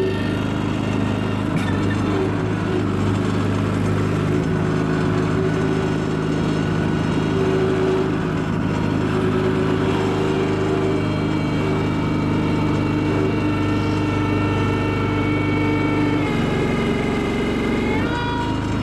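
Terramite T5C compact tractor-backhoe's engine running steadily, with its pitch shifting and rising briefly near the end.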